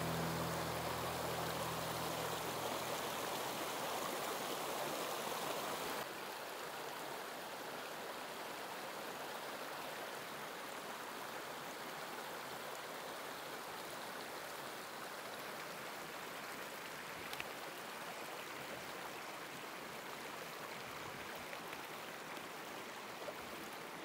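Snowmelt stream running over rocks between sheets of ice: a steady rush of water that turns a little softer about six seconds in.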